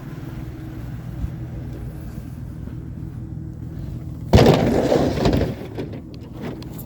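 Vehicle running with a steady low hum, then a sudden loud crash and clatter about four seconds in that lasts about a second.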